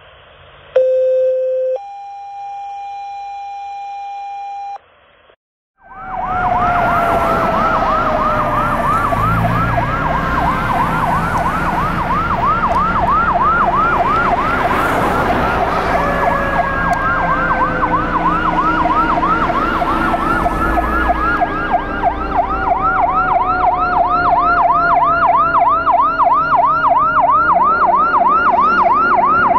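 A two-tone dispatch alert first: a short low tone, then a longer higher one. After a short pause comes a fire engine's siren in a fast warbling yelp, about four cycles a second, with slower siren tones gliding downward over it, growing louder as the engine approaches.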